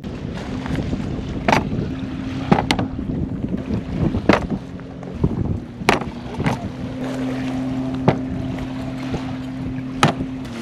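Cookware and dishes set down one after another on a folding metal camp table: about seven sharp clinks and knocks, over a steady low hum and wind noise.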